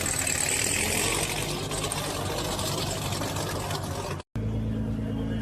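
A loud sports car's engine and exhaust, a dense rushing noise with strong high hiss. About four seconds in it cuts off abruptly, and another car's engine runs at a steady low pitch.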